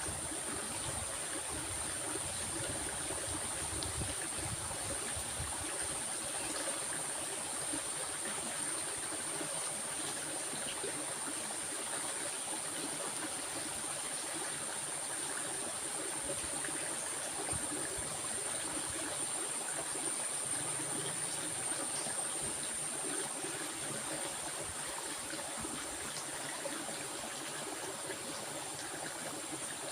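Stream water flowing and trickling steadily, with an even rushing wash and no breaks. A steady high-pitched whine sits above the water throughout.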